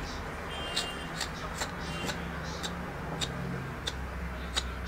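Metal peeler scraping the skin off a stink bean pod in short, quick strokes, about one every half second, over a low steady hum.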